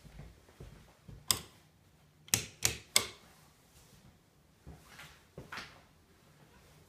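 A few sharp knocks and clicks in a small room: one about a second in, a quick run of three a little after two seconds, then softer ones near the end.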